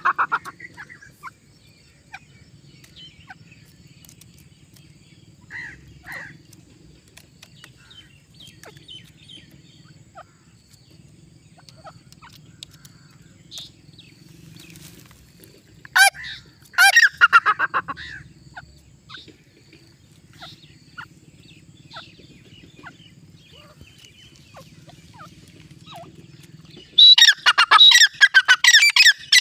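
Grey francolin calling: a short loud burst of repeated calls about halfway through, then a long run of rapid, high, repeated calls starting near the end. In between there are only faint scattered clicks.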